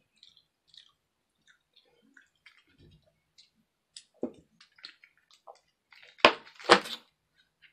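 Soda being drunk straight from a large plastic bottle: quiet swallowing and liquid in the bottle, with two louder glugs close together about six seconds in.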